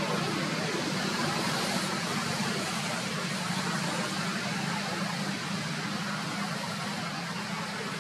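Steady rushing background noise with a low hum underneath, easing slightly after about five seconds.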